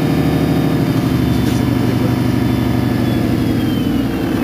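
MAN NL223 city bus's diesel engine idling steadily at a standstill.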